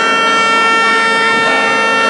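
Several ships' horns sounding together, each holding one long steady tone, over a general crowd noise, the customary salute when the cross is thrown into the harbour at Theophany.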